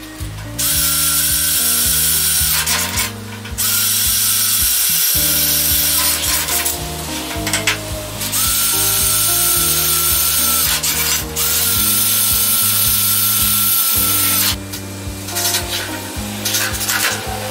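Cordless drill running in several long bursts, each with a whine that rises briefly as the motor spins up. Background music plays underneath.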